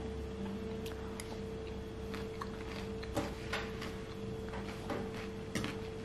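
Quiet kitchen room tone: a steady electrical hum with a handful of faint, irregularly spaced clicks.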